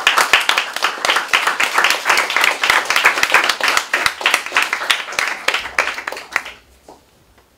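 A group of people applauding: dense, rapid hand clapping that dies away after about six and a half seconds.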